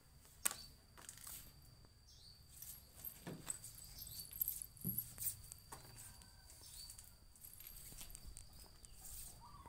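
Quiet ambience with a sharp tap about half a second in and a few light knocks of a toddler's hands and knees moving on a wooden tabletop among picture cards. Faint high chirps and a steady faint high tone sit behind them.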